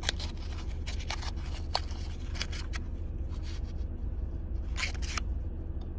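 Paper coin-roll wrappers crinkling and rustling as fingers pinch and fold back the crimped ends of half-dollar rolls, with scattered light clicks, over a steady low hum of the car cabin.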